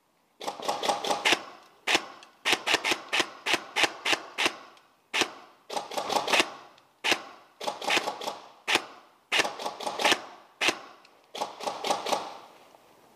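Airsoft gun firing steady suppressing shots in quick strings of two to five, about a dozen strings, each crack with a short ringing tail, to keep an opponent pinned at a door.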